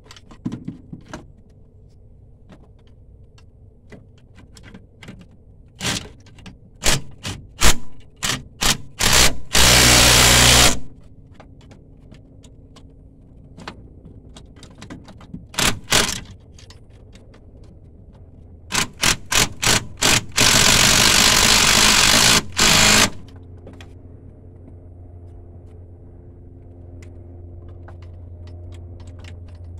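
A power tool worked on a fastener in short trigger blips, then run steadily for about a second, and later in quicker blips followed by a run of about two and a half seconds. A steady low hum sits underneath.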